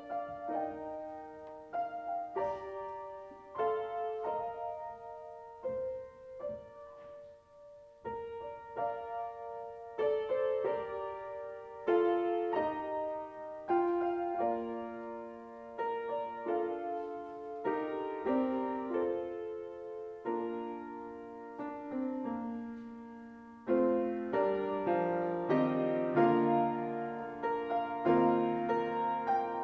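Solo grand piano played at an unhurried pace, single melody notes and chords ringing on. It grows louder and fuller, with lower bass notes added, for the last few seconds.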